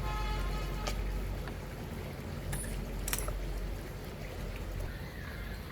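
A few light metallic clicks and clinks over a low steady background rumble.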